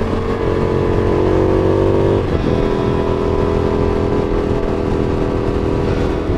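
Indian FTR 1200's V-twin engine running under way at road speed, heard from the rider's helmet mic with wind rushing over it. The engine note sags slightly, breaks briefly about two seconds in, then holds steady.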